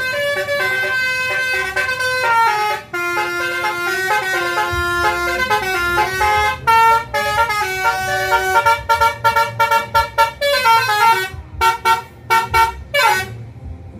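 Basuri telolet horn of a New Manja Jetbus 5 coach playing a tune: held multi-tone notes stepping from pitch to pitch, then a run of short quick toots from about nine seconds in that stops shortly before the end.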